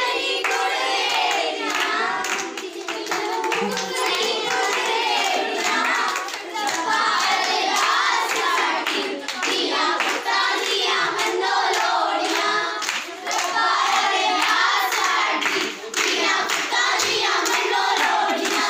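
A group of girls singing a Punjabi folk song together in chorus, with rhythmic hand clapping in time.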